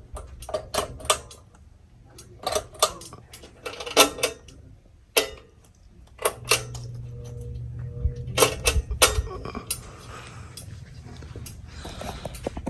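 A run of irregular sharp clicks and clatters, a few of them loud, with a steady low hum in the middle of the stretch.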